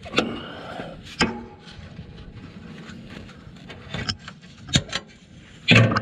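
Hands and a tool working at the plastic clips and zip ties on a NOx sensor's wiring harness: scattered sharp clicks and knocks with some rubbing. The loudest clatter comes near the end.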